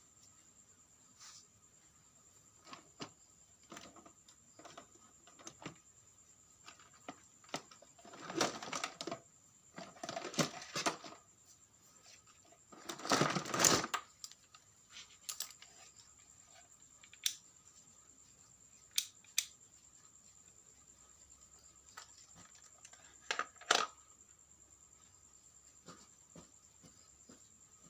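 Scattered clicks and knocks of plastic parts and tools being handled while working on a portable vacuum cleaner, with a few short scraping rustles in the middle, the loudest about halfway through.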